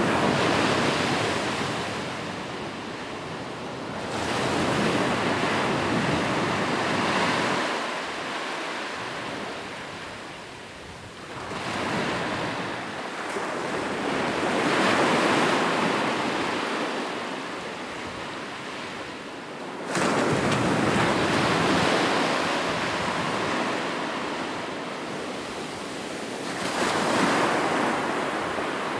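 Ocean surf: waves breaking and washing up, the rush of water swelling and fading in slow surges every five to seven seconds, one wave hitting more suddenly about two-thirds of the way through.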